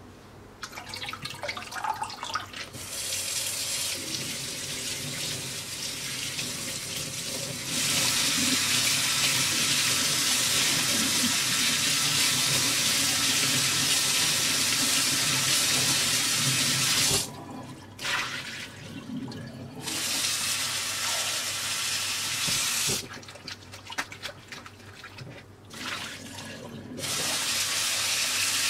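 Kitchen tap running into a stainless steel sink, cutting off suddenly a couple of times and starting again, with splashing as perilla leaves are rinsed by hand under the stream and swished in a glass bowl of water.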